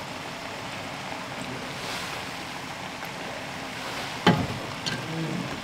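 A steady hissing noise, with one sharp knock about four seconds in.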